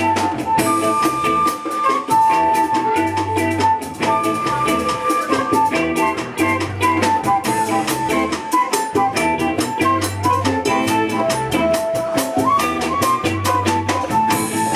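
World-fusion band music: a melody of held notes over a bass line and a drum kit keeping a steady beat, with the melody sliding between notes near the end.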